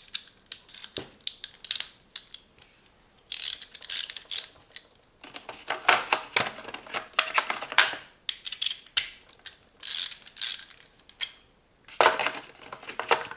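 Hand ratchet wrench from a cheap socket set clicking in about four runs of rapid clicks as it is turned back and forth, with a few single metal clicks between runs.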